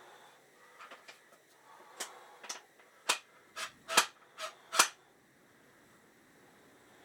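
Clamps being set and ratcheted tight on glued panels: a quick run of about seven sharp clicks and snaps over three seconds, the loudest near the end.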